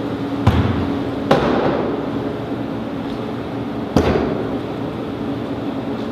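Three sharp bangs, the first two close together and the third a few seconds later, over a steady low hum.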